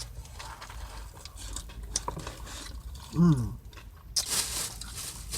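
A person chewing a mouthful of food, with a short falling-pitched "mm" of the voice about three seconds in; near the end, a plastic chip bag starts crinkling.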